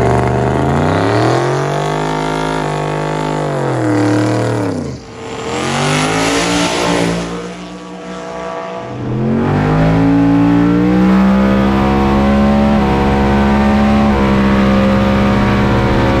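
Twin-turbo 5.0 L Coyote V8 of a 1967 Ford Fairlane drag car revving in rising and falling sweeps, then launching about five seconds in with a loud rush that fades as the car pulls away. From about ten seconds in the engine runs steadily, its pitch held with small shifts.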